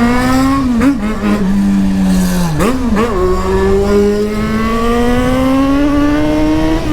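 Yamaha XJ6's inline-four engine roaring as the motorcycle accelerates through the gears: the engine note drops sharply at a gear change between two and three seconds in, then climbs steadily under load.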